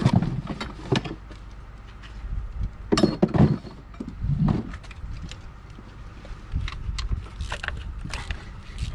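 Handling noise from work in a car's engine bay: scattered sharp clicks and knocks, with a few heavier clunks at the start and about three seconds in.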